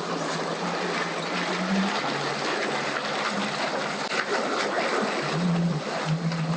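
A boat engine idling with a low hum that steps up and down in pitch a few times, over a steady hiss of water and wind.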